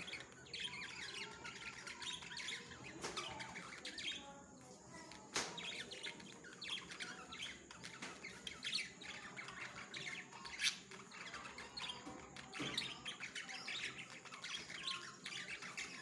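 Budgerigars chirping and chattering nonstop in rapid, high, short calls, with a few sharp clicks, the loudest about eleven seconds in.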